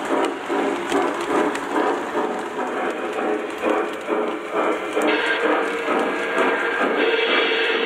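Lionel O-gauge passenger cars rolling along three-rail model track with a rhythmic clatter of wheels. From about five seconds in, background music with steady notes comes in and grows louder near the end.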